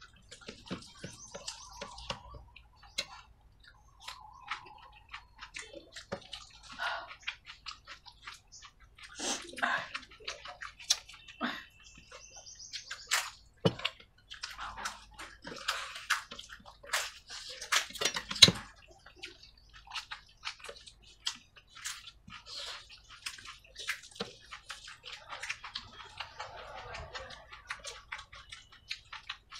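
Eating kadhi chawal by hand: wet squishing as fingers mix and scoop rice soaked in kadhi, with chewing and mouth sounds and many short sharp clicks scattered throughout, the loudest about two-thirds of the way in.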